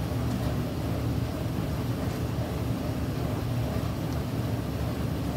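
Steady low background rumble, with a couple of faint light clicks.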